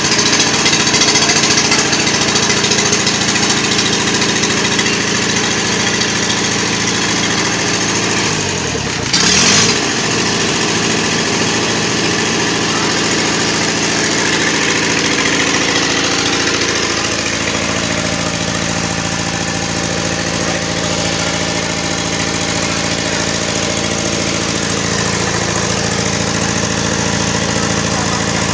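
Lister 20 kVA diesel generator engine running steadily. About nine seconds in, its pitch dips briefly and recovers.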